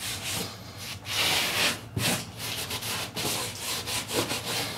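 Cotton towel wiping hard across a plasterboard ceiling in repeated back-and-forth strokes, a dry scrubbing rub. The towel is rubbing off the chalky, powdery filler on the patch before priming.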